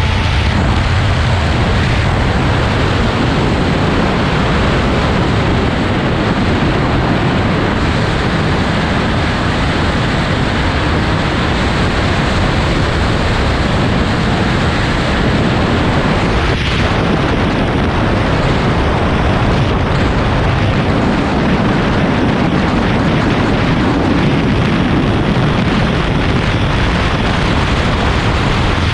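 Heavy wind buffeting on the microphone of a Triumph Speed Triple 1200 RS motorcycle at high speed. It is a loud, steady roar, with the bike's three-cylinder engine running underneath it.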